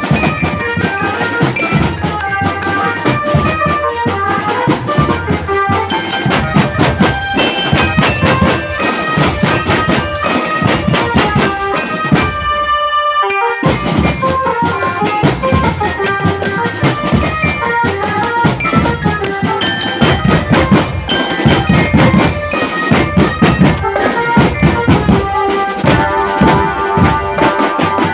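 Marching drum band playing: a quick, dense drum beat under a melody on bell lyres. The drums drop out for about a second just before the middle.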